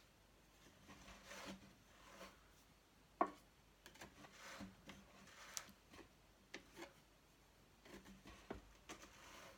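Carded wool being lifted and pulled off the wire-toothed drum of an electric drum carder with a thin stick: faint scratchy rubbing and tearing with small ticks, and one sharp wooden knock about three seconds in.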